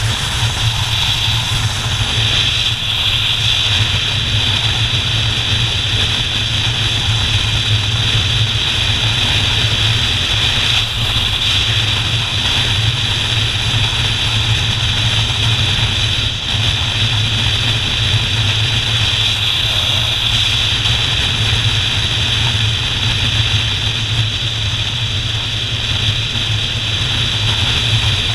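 Motorcycle engine running steadily at cruising speed, with wind and road noise on the onboard camera's microphone.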